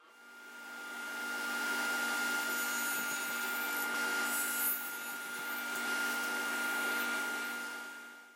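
Table saw running with a stacked dado blade, a steady whine over a hum, as it cuts a notch through a softwood board around the middle; the sound fades in at the start and out at the end.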